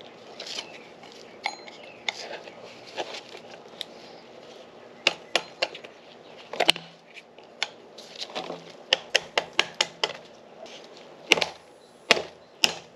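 Mallet knocking a new urethane bushing into the mounting ear of a Nissan 350Z rear differential housing: sharp clinking knocks, a few scattered at first, then a quick run of about six some nine seconds in and several more near the end. Fainter clicks of parts being handled come before the knocks start.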